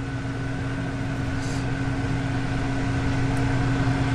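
Steady mechanical hum of a running machine: a low drone with a couple of steady tones above it, growing slowly louder.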